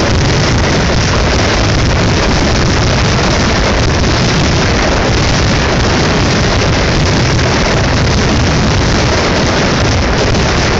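Fireworks finale barrage heard from almost underneath: many shells bursting so close together that they merge into one loud, continuous rumble.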